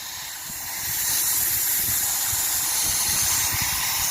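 A steady hiss that swells over the first second, then holds.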